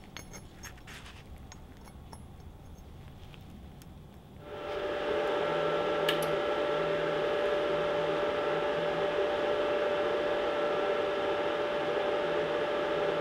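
Hitbox HBC45 IGBT plasma cutter powered on about four seconds in, its cooling fan running with a steady whine and a rush of air, and a single click a couple of seconds later. Before that, a few faint clicks.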